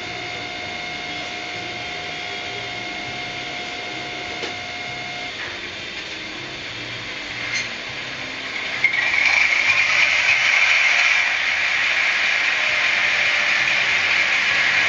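Piko DF7C model diesel locomotive running, its sound decoder playing diesel engine sound through a small speaker mixed with the whir of the model's motor and gears. About nine seconds in it grows clearly louder and harsher.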